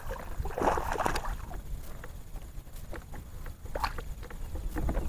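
Fishing reel being wound and rod handled while a bass is reeled in, with a rustle about a second in and scattered light clicks, over a steady low rumble of wind on the covered microphone.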